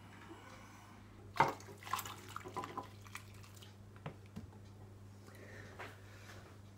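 Hot spiced syrup with fruit poured from a pot into a slow cooker of warm red wine: a knock about a second and a half in, then about a second of splashing and dripping, with a single clink near the middle and faint trickling later.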